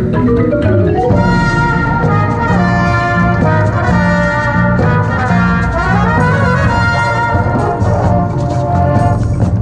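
Drum and bugle corps brass line playing loud, held chords, backed by front-ensemble marimbas and percussion.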